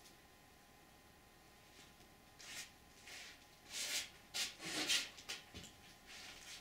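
A string of short rustling and scraping noises starting about two seconds in, loudest around the middle, then fading: something being handled off-picture.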